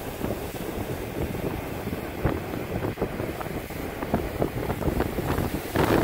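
Wind buffeting the microphone in irregular gusts over the wash of ocean surf breaking on the beach, growing louder near the end.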